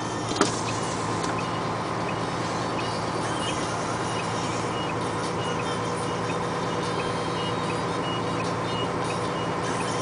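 Dump truck's diesel engine running steadily as the truck drives slowly over an unpaved roadbed. There is a sharp knock about half a second in, and faint short high beeps repeat now and then.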